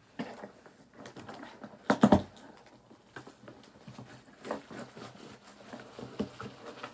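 Hands opening a cardboard box and handling the packaging: a run of small taps, clicks and rustles, with a louder knock about two seconds in.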